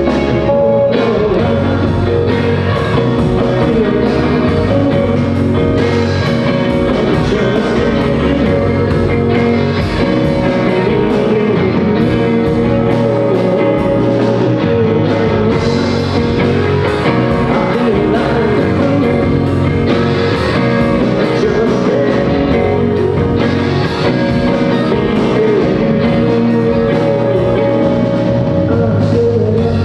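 Rock band playing a song through at full volume: drum kit, guitar and singing.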